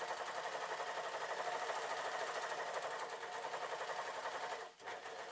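Overlocker (serger) running at a fast, even speed as it stitches and trims a fabric edge, then stopping abruptly near the end with a brief restart.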